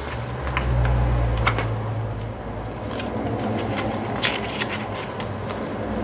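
Pages of a glossy photo book being turned and handled: scattered paper rustles and soft flicks, with a low rumble during the first couple of seconds.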